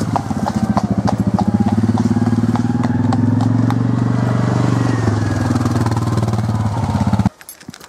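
Quad bike (ATV) engine running steadily at close range, with horses' hooves clip-clopping on the tarmac lane over the first couple of seconds. The sound cuts off abruptly near the end.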